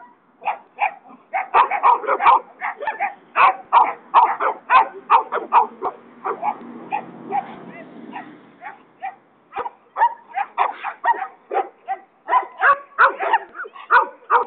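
Dogs barking rapidly and repeatedly, worked up by a decoy during protection-training agitation, with a lower, steadier sound under the barks about six to eight seconds in.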